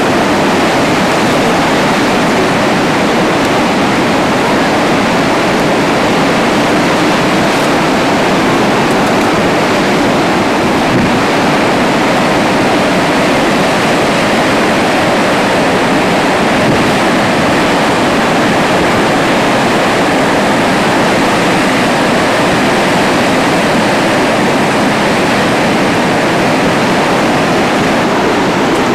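Steady rush of Niagara Falls' falling water, with wind on the microphone.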